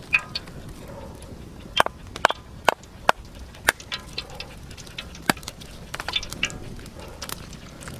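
A stone knocking on an ostrich eggshell to crack it, about a dozen sharp taps at uneven intervals.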